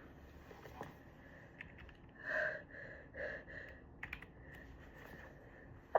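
Quiet pause between stifled sneezes: a few faint clicks and two soft breaths, about two and three seconds in. The next stifled sneeze bursts in right at the very end.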